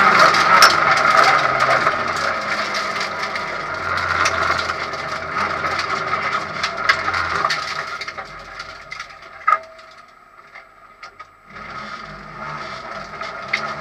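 Rally-prepared Honda Civic heard from inside the cabin, coasting off the throttle with its engine falling to low revs, with many sharp clicks and rattles. The engine goes nearly quiet for about a second and a half around ten seconds in, then runs again at low revs with more clicks.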